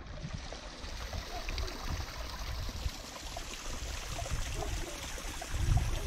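Water from a small brook trickling down a stone terrace wall and running along the ditch below: a steady splashing trickle. A low rumble joins near the end.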